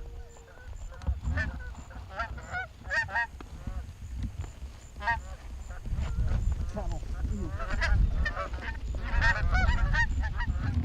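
Canada geese honking: many short, overlapping honks that grow busier after about six seconds, over a low rumble.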